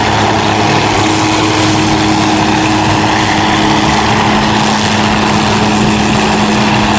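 Red MD 500-series light helicopter hovering low, its turbine engine and rotors running with a steady hum.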